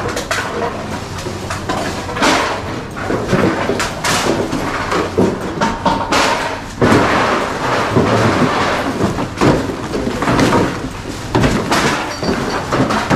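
Empty drink bottles and cans being sorted and tossed into plastic crates at a bottle-return counter: an irregular, busy clatter of knocks.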